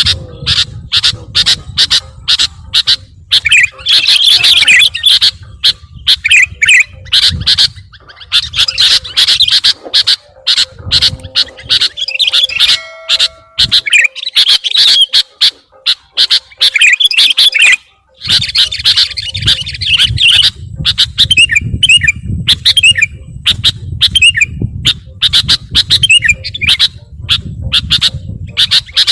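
Sooty-headed bulbul (kutilang) calls: a dense run of loud, rapid chirps and squawks, used as a lure sound to draw wild birds in for trapping.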